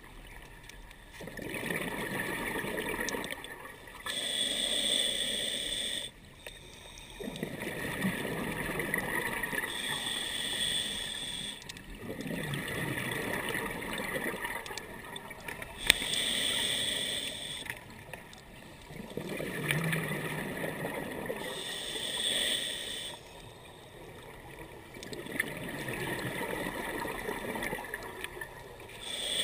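Scuba diver breathing through a regulator underwater: a short hiss on each inhale, then a longer rush of bubbles on each exhale, about every six seconds. A single sharp click about sixteen seconds in.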